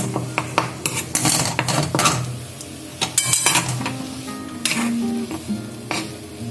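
Steel spoon scraping and knocking against a steel pan as a lump of khaja dough is stirred and pressed while it roasts in sizzling oil. Background music plays under it.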